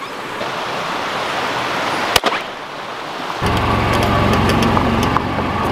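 Creek water rushing steadily. Then, after a cut, a utility vehicle's engine starts running steadily with a constant high whine.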